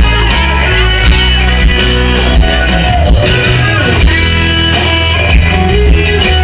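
Live sertanejo band playing an instrumental guitar passage through the PA, loud, with guitars over bass and a steady beat.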